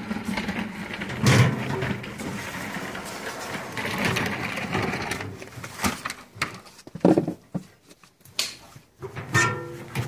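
Sheet-metal clatter from a tumble dryer's steel drum and cabinet being handled and fitted together: irregular knocks and rattles with some metallic ringing, the sharpest knocks about a second in and again near seven and eight and a half seconds.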